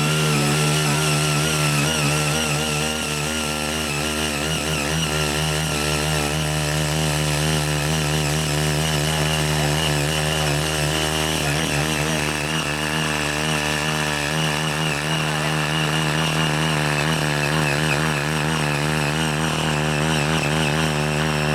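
Ching Yee CY80 mini cultivator's 5 HP engine running steadily under load while its rotary tines till hard red laterite soil, the engine note wavering slightly as the tines bite.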